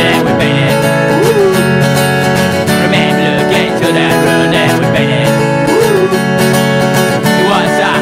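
Acoustic guitar strumming in a repeating chord pattern, part of an acoustic punk song.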